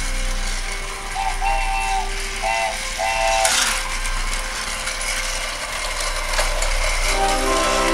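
Battery-powered Thomas & Friends TrackMaster toy engines running on plastic track, their small motors and gears giving a steady whirring rattle. A few short tones come in between about one and three seconds in.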